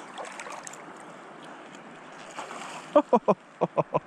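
Steady wind and river-water noise, then about three seconds in a quick run of about seven short, loud whoops from the fisherman's voice as he fights a hooked salmon.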